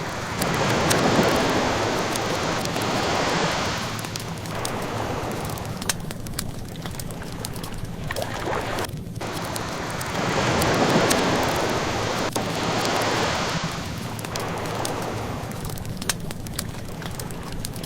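Ocean waves washing in, two slow swells about nine seconds apart over a steady surf wash, with the small scattered crackles of a wood fire burning.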